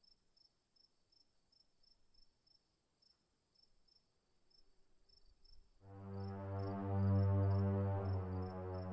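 Crickets chirping, about three chirps a second over a steady high insect whine. About six seconds in, loud, low droning background music comes in suddenly and holds.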